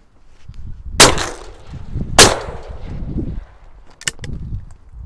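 Shotgun firing twice, about a second apart, each shot loud and sharp with a short echo, followed by a few fainter clicks.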